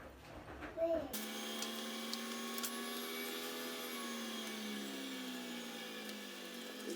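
A small electric motor switches on about a second in and runs steadily, its pitch slowly dropping.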